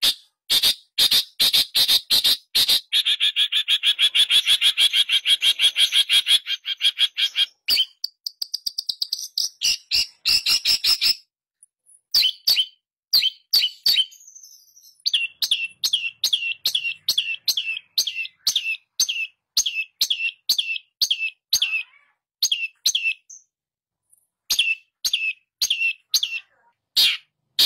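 A caged long-tailed shrike (pentet) singing hard: harsh chattering strokes, then a fast, even run of notes and a higher rapid burst. After a short break about eleven seconds in comes a long series of short, sharp repeated notes, about two a second, broken once more near the end.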